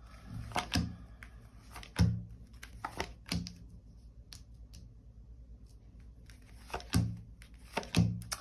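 Tarot cards being drawn and laid down on a table: a series of sharp slaps with a dull thud under each, some in quick pairs, with a longer pause in the middle.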